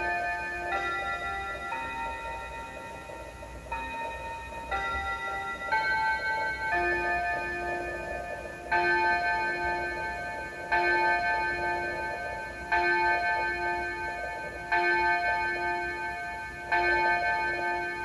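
Seiko QXH057B pendulum wall clock chiming the hour. It plays a tune of single bell-like notes about a second apart, then strikes the hours with one repeated chime note about every two seconds, each note ringing on and fading.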